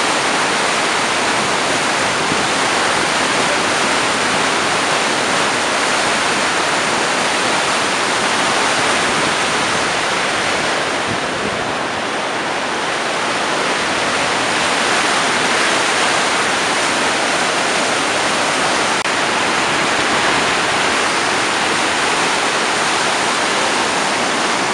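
Steady rush of white-water rapids in a fast-flowing, boulder-strewn mountain river. It dips a little about halfway through.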